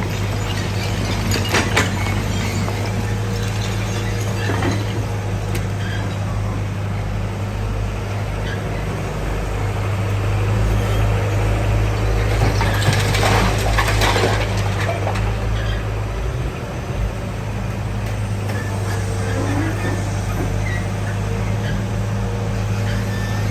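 Excavator running with a steady hum, with a few sharp clicks early and a burst of crunching and clattering about thirteen seconds in as it breaks up and moves debris.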